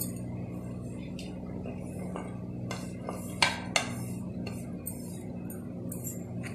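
Scattered light clinks and knocks as green chillies and coriander are dropped into a steel mixer-grinder jar, the two loudest about halfway through, over a steady low hum.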